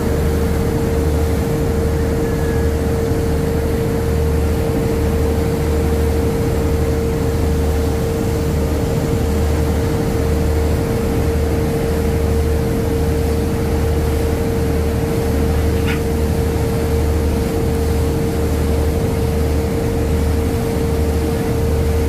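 A boat's engine running steadily, heard from aboard: a constant drone with one steady mid-pitched tone over a low, evenly pulsing throb.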